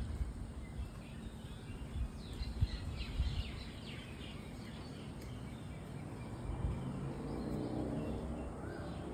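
Faint outdoor garden ambience with small birds chirping. A run of quick, high, falling chirps comes a couple of seconds in, over a low rumble on the microphone. A lower, drawn-out sound with several tones rises near the end.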